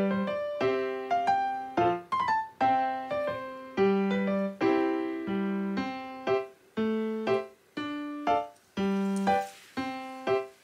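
Background piano music: a gentle, unhurried tune of single notes and chords, each struck and left to fade.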